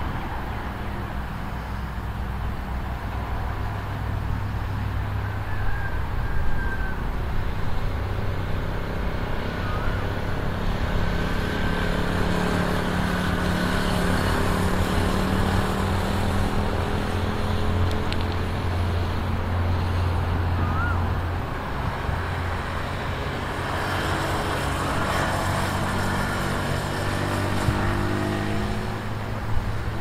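Sport motorcycle engine on a circuit, its pitch falling and rising as the bike slows for corners and accelerates out of them.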